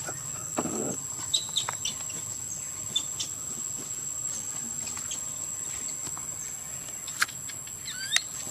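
Baby long-tailed macaque giving short high squeaks and, near the end, sharper rising squeals. A steady high insect drone sounds throughout.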